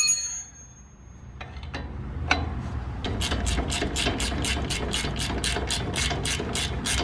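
A sharp metallic clink that rings briefly at the start. Then a hand ratchet with an 18 mm socket, turning a nut on a truck's front steering knuckle, gives a few single clicks before clicking steadily at about four a second from about three seconds in.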